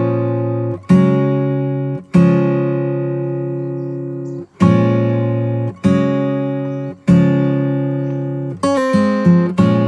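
Background music: an acoustic guitar strumming chords, each left to ring, with a new chord every second or two.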